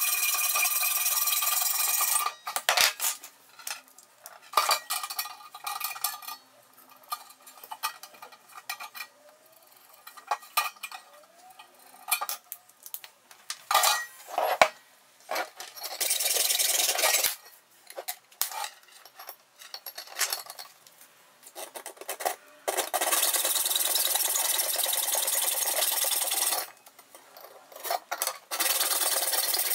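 Hacksaw cutting through a steel threaded rod in several spells of steady rasping, the longest about four seconds. Between them come short clicks and clinks as the rod and tools are handled.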